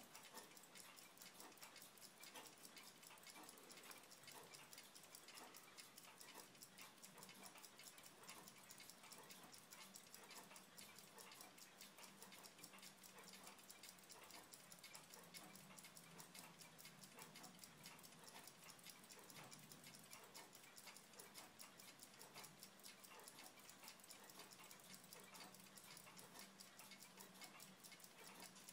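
Near silence with a faint, fast, even ticking running throughout, over a faint low hum.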